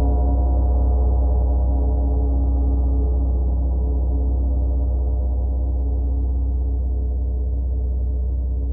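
A large gong ringing on after a strike, a deep hum with many steady overtones above it, slowly fading, the highest overtones dying away first.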